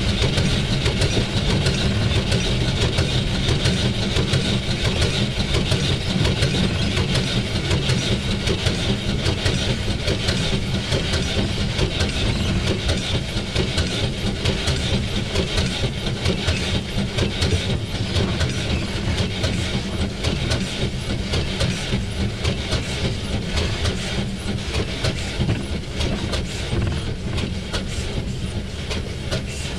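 The 1910 Swedish SJ E2 steam locomotive under way, heard from inside its cab: a steady, loud running noise with a quick, continuous rattle, getting somewhat quieter toward the end.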